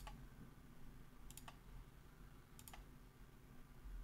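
Faint computer mouse clicks placing spline points, some in quick double clicks: one at the start, then a pair about a second and a half in and another pair near three seconds in.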